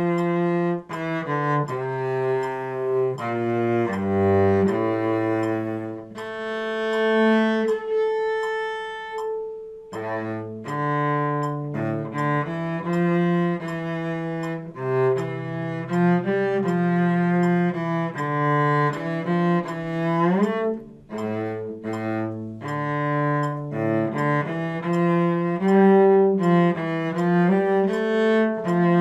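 Solo cello bowed, playing a slow melodic line of one note at a time, with a slide up in pitch about two-thirds of the way through.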